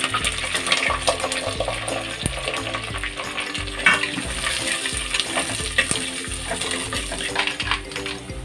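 Sliced onion frying in oil in a clay pot, sizzling, while a steel spoon stirs it, with short clicks and scrapes of the spoon against the pot.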